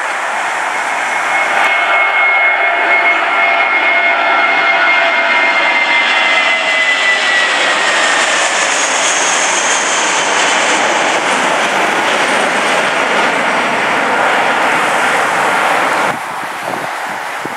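Jetstar Airbus A320-family airliner's twin jet engines running at takeoff thrust as it lifts off and climbs out: a loud, steady jet noise with a high whine that slides slowly down in pitch. Near the end the sound drops suddenly to a quieter rush.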